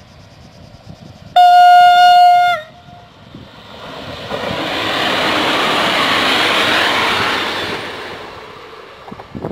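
Train horn sounding one blast of about a second, a single steady tone whose pitch sags as it cuts off, followed by the train passing close by: a rushing rail noise that swells, holds for a few seconds and fades.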